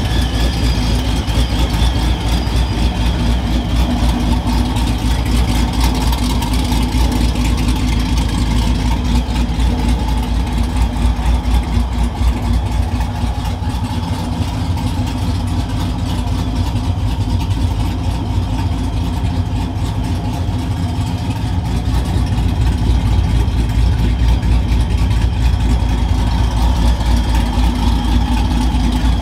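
Supercharged 5.7 L Hemi V8 of a Ram 1500 R/T, fitted with an aftermarket camshaft, idling steadily while it warms up. It gets a little softer midway and a little louder near the end.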